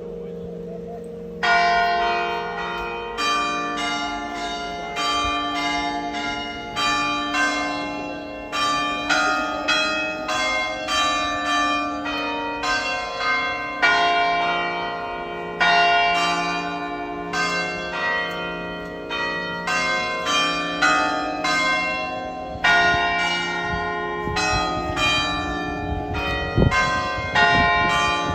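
Church bells of the Bom Jesus do Monte sanctuary ringing a peal: several bells of different pitches struck one after another, about one or two strokes a second, each stroke ringing on under the next. The first second and a half holds only the hum of earlier strokes before the strikes begin.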